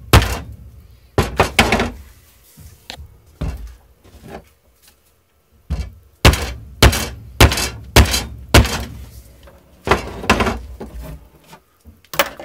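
Repeated sharp knocks as a new fiberglass handle is driven down into a steel sledgehammer head to seat it: about fifteen strikes, singly and in quick runs of two or three, with short pauses between.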